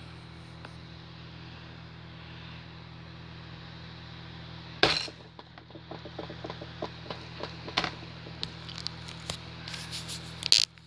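Homemade slime squeezed and pressed by hand against a wooden tabletop: a sharp smack about five seconds in, then a run of small sticky pops and crackles, busiest near the end. A steady low hum runs underneath.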